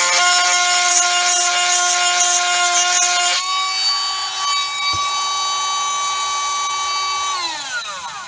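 A 12-volt electric chainsaw sharpener's small motor whines as its grinding stone files a chain tooth, with a gritty grinding hiss. About three and a half seconds in, the grinding stops and the motor's whine steps up to a higher steady pitch as it runs free. Near the end it is switched off and winds down, falling in pitch.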